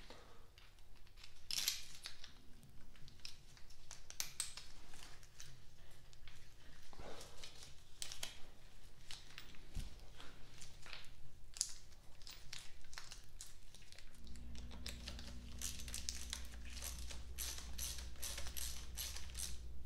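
Bolts and hand tools on an engine block: scattered small metal clicks and clinks, with latex-glove rustle, as the timing chain tensioner's long bolts are threaded in by hand. About three-quarters of the way through, a fast run of tool clicks starts as the bolts are run down, and a low hum comes in at the same moment.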